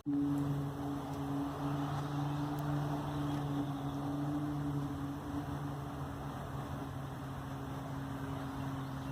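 A steady low droning hum in the sky with a couple of overtones over a haze of background noise; it cuts in abruptly and holds a constant pitch. This is the kind of unexplained drone known as a 'strange sky sound', likened to a trumpet.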